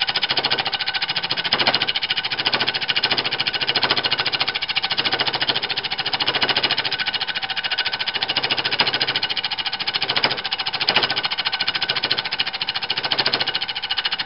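Wood lathe spinning a wood blank while a compound-rest-fed cutting tool cuts into its uneven, unturned part, giving a fast, steady clatter with a few louder bites.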